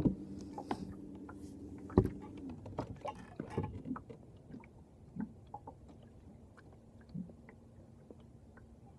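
Steady low hum of a motor on a small fishing boat that stops about two and a half seconds in. Sharp knocks come at the start and about two seconds in, then scattered clicks and knocks of handling in the boat.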